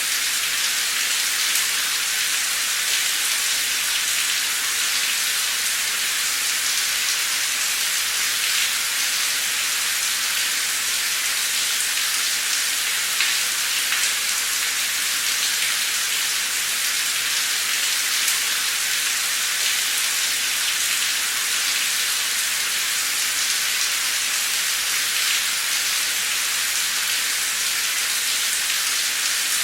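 Heavy, torrential rain pouring down in a steady, even hiss, with scattered drop ticks through it.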